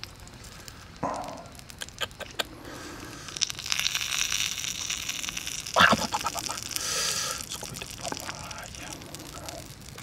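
Hands tearing apart grilled pig intestine on a flat stone slab: a run of small clicks and crackles, a hissing stretch in the middle, and one sharp knock about six seconds in.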